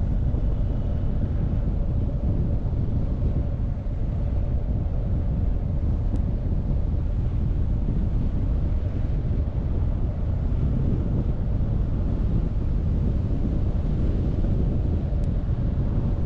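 Wind buffeting the microphone over the steady drone of a BMW R1250GS's boxer-twin engine while the motorcycle is ridden at an even pace.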